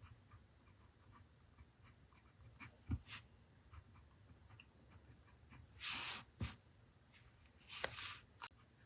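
Pen writing on paper in a journal: light scattered taps and strokes, with two louder scratchy passes, one in the middle and one near the end.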